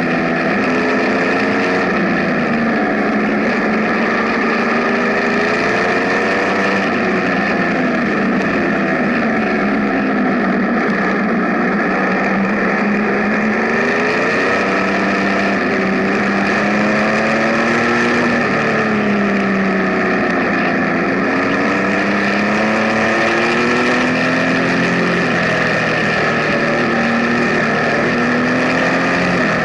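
Benelli Tornado Tre 1130's inline three-cylinder engine running under way, its pitch rising and falling again and again as the throttle is opened and closed, over steady wind noise on the microphone.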